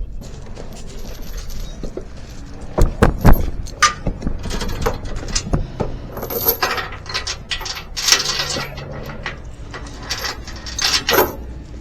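Steel tie-down chains rattling and clanking as they are handled, in an uneven run of sharp metallic clinks, loudest about three seconds in and again near the end.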